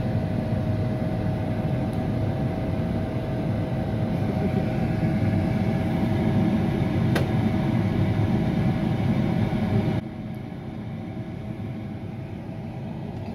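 A steady mechanical hum with a faint held tone. It drops suddenly to a quieter level about ten seconds in.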